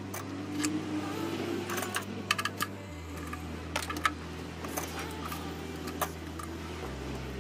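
Sharp clicks and light rattles of engine parts and hand tools being handled in an engine bay: a cluster of clicks about two seconds in, with more near four and six seconds.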